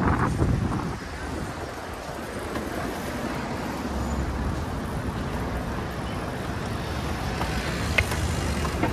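Steady city traffic and road noise heard from a moving bicycle, with a deeper low rumble for a couple of seconds from about four seconds in and a sharp click near the end.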